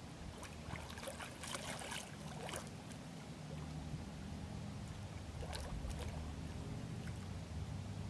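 Water splashing as a small diving duck, thought to be a young goldeneye, dives and surfaces close by: a cluster of splashes from about half a second to two and a half seconds in, and another short splash around five and a half seconds. A low steady rumble lies underneath.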